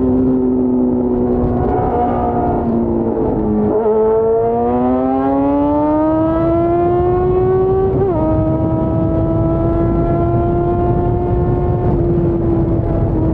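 Yamaha FZ6's 600 cc inline-four engine under way, with a rush of wind underneath. The engine note sags briefly, then climbs steadily under acceleration for about four seconds. It drops abruptly with an upshift about eight seconds in and holds nearly steady after that.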